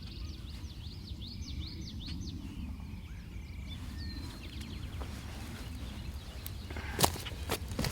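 Small birds chirping over a low steady rumble in a field, the chirps thickest in the first few seconds. Near the end come a few sharp knocks or rustles, the loudest about seven seconds in.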